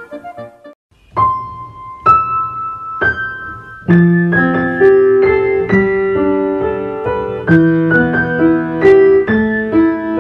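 Background piano music: three single notes about a second apart, then a fuller passage with several notes at once from about four seconds in.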